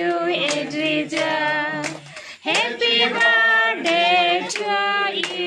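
A group of women and children singing a birthday song, with hands clapping along about twice a second.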